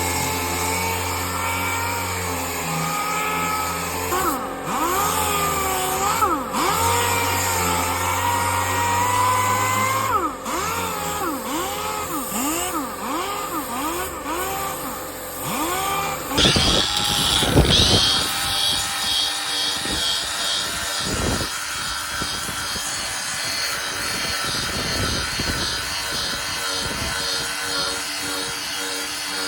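Cordless power sander sanding paint off a fibreglass boat hull, its motor pitch repeatedly dipping and recovering as it is pressed and worked across the surface. About halfway through the sound changes abruptly to a rougher, steadier sanding noise.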